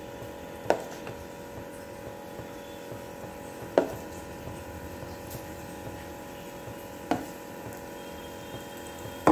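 Three sharp knocks of a utensil against a frying pan, about three seconds apart, over a steady hum, as fritter batter is dropped into hot oil.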